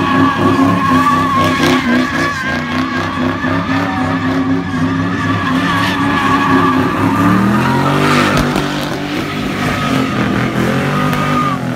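Car doing a burnout: the engine revs high and the tyres squeal continuously as they spin. The engine pitch climbs and then drops again about two-thirds of the way through.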